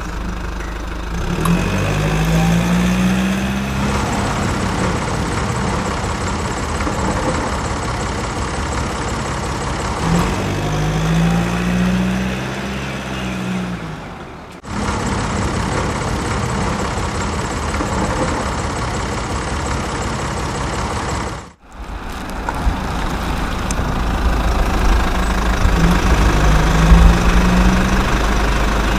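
Engine idling with a knocking beat, revving up and back down three times. The sound breaks off sharply twice.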